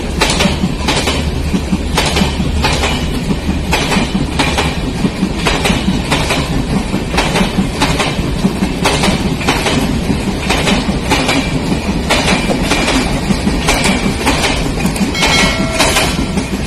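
Train of LHB AC passenger coaches running past at speed: a continuous rumble with a rhythmic clickety-clack of wheels over rail joints.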